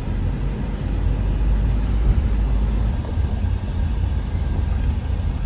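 A car driving along a road: a steady low rumble of the moving car with no distinct events.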